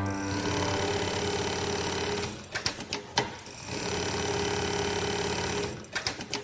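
FOXSEW FX12090 programmable pattern sewing machine stitching a bar-tack pattern on webbing: the machine runs steadily for about two seconds, stops with a few sharp clicks, runs for another two seconds, then clicks again near the end.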